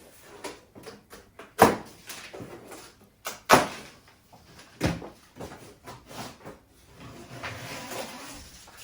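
Handling of a large cardboard box: three sharp knocks and several lighter clicks, then a stretch of scraping and rustling near the end.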